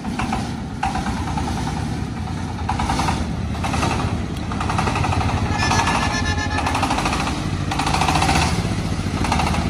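Engine of a self-propelled Nhật Tân rice thresher running on the throttle with a fast, even pulse while the machine is driven and pushed up onto the yard. Louder, higher surges come and go on top of it.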